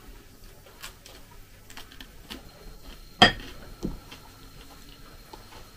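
Metal fork clinking against a ceramic bowl, with scattered light clicks and one sharp clink a little after three seconds in.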